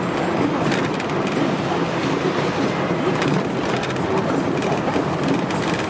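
Steady road and engine noise inside a moving taxi's cabin, with rattles and knocks from the car body at intervals.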